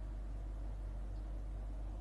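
Steady low hum with a faint even hiss, without distinct stirring or scraping strokes.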